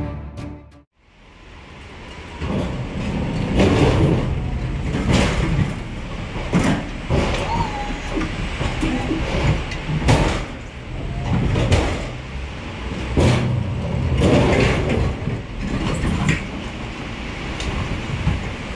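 Low rumble inside a loaded curtainsider truck trailer, broken by irregular clanks and knocks from the trailer body and its load every second or two, with a short squeak now and then.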